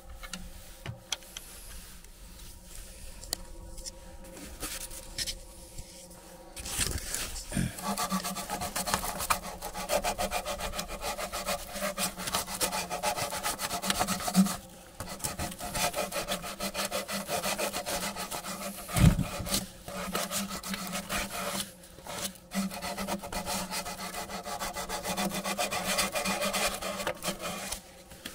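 A saw cutting through the 1.5-inch toilet vent pipe, shortening it so a reducer fitting will slide on. The cutting starts about seven seconds in and runs in stretches with a few short pauses, with one sharp knock partway through.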